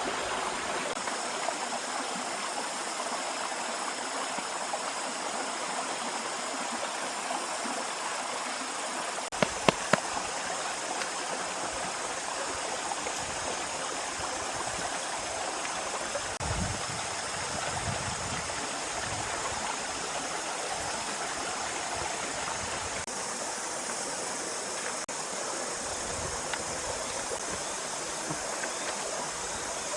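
Steady rushing of flowing stream water, with three sharp clicks in quick succession about ten seconds in and a few low thuds later.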